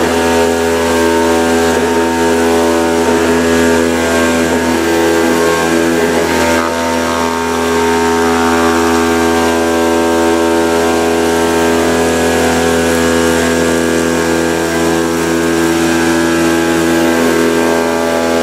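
Kimla CNC machine cutting a gasket sheet with its oscillating knife: a steady, loud mechanical hum with several constant tones, unchanging as the knife traces the outline.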